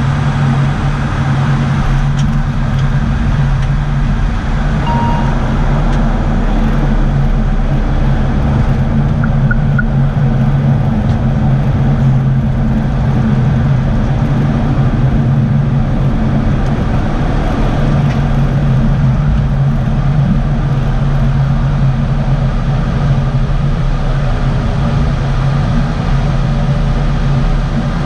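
An ATR 72-600's twin turboprop engines and propellers droning steadily, heard inside the cockpit, with a strong low hum during the landing and rollout.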